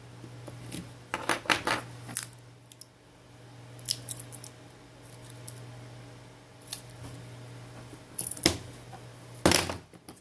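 Clusters of small sharp clicks and taps from a smartphone and small repair tools being handled on a workbench, the loudest near the end, over a low steady hum.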